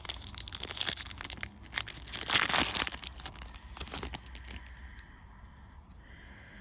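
Foil booster pack wrapper crinkling and being torn open, a rapid run of crackles with the loudest tear about two and a half seconds in, dying down after about five seconds.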